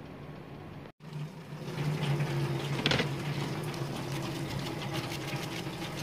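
A stiff bristle brush scrubbing a printed circuit board in scratchy strokes, over a steady low machine hum.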